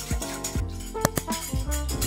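Background music with drums and percussion keeping a steady beat.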